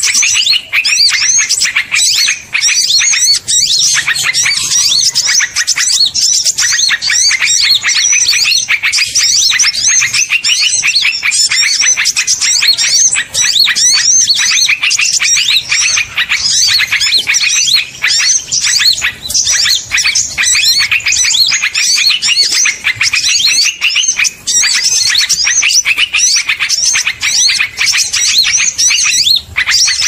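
A bird-trapping lure recording of small songbirds chirping fast and without a break, many high calls overlapping. The sound is loud and even throughout.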